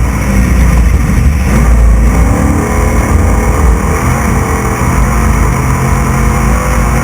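Onboard sound of a Class 6100 desert race truck driven at race pace: the engine runs loud and continuous under a dense layer of noise. About a second and a half in, the revs drop briefly, then climb again.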